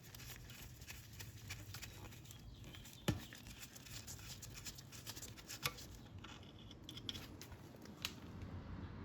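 Faint small clicks and taps from the oil filler cap and dipstick being handled to recheck the oil level, with a few sharper knocks about three, five and a half and eight seconds in.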